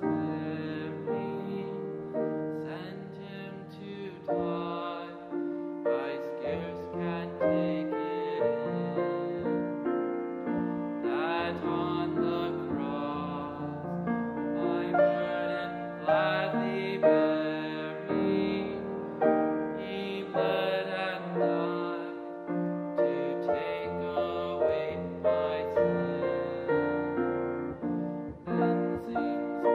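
Slow, gentle instrumental piano music.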